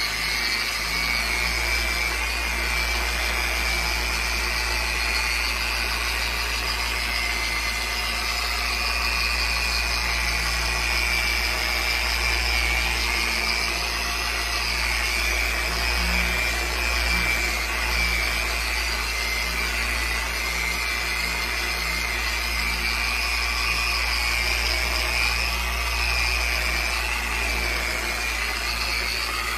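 Electric polisher with an orange foam pad running steadily while it buffs polish into the painted surface of a model glider wing, bringing the paint up to a gloss. The motor gives an even whine over a low hum, with no change in speed.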